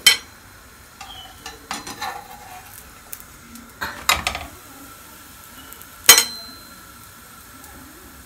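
Metal kitchen tongs clacking and clinking against a plate and a frying pan as a gözleme is lifted into the pan and turned: a sharp clack at the start, scattered clicks through the middle, and one loud clink about six seconds in that rings briefly.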